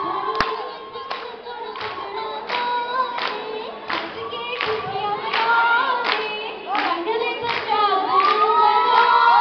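A voice singing long, wavering held notes, with steady hand-clapping of about two claps a second.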